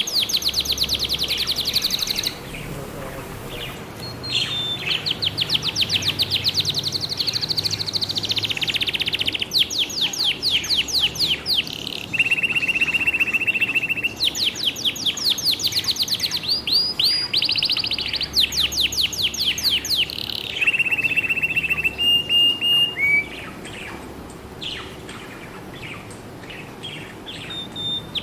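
Budgerigars chirping in fast runs of rapidly repeated high notes, each run lasting a few seconds, broken twice by a short, steady whistled note. The chirping is quieter for a few seconds near the start and again toward the end.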